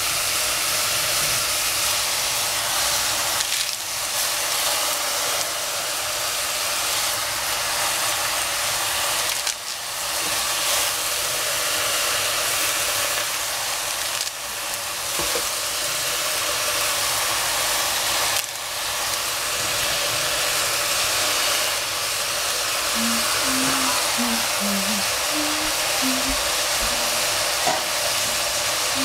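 Mushrooms frying in oil in a stainless steel pot, a steady sizzle under a pile of freshly added Chinese cabbage leaves.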